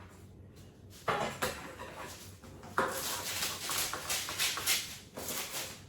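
Baking paper rustling and crinkling in short, scratchy bursts as it is handled and pressed into the bottom of cake tins.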